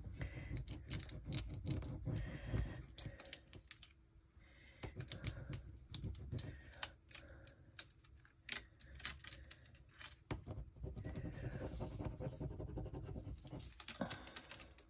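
A plastic stick scratching and rubbing over a rub-on transfer sheet laid on paper, burnishing the design onto the page, with many small irregular clicks and scrapes and brief pauses around four and ten seconds in.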